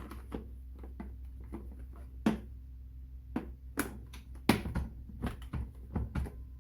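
Irregular sharp clicks and light knocks of objects being handled, coming more often in a busy run in the second half, over a steady low hum.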